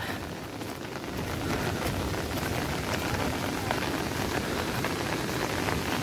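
Steady rain falling, an even hiss scattered with many small drop ticks.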